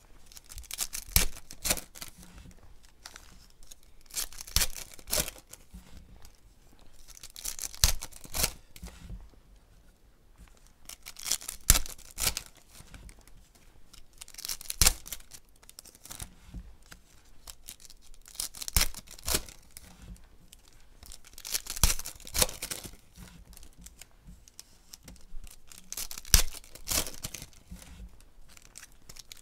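Foil card packs torn open by hand, one rip every three to four seconds, with cards and wrappers rustling in between.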